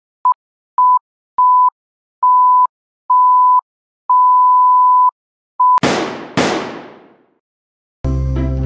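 A steady electronic beep tone sounding seven times, the beeps mostly growing longer, then two loud crashing bursts about half a second apart that fade away, and music starting near the end.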